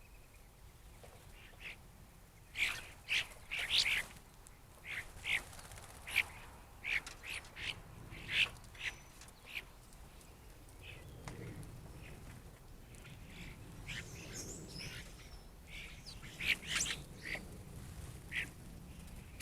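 A flock of black birds calling in many short calls, bunched in two flurries: one from about three seconds in to about ten, and another near the end. A low rumble comes in under the second half.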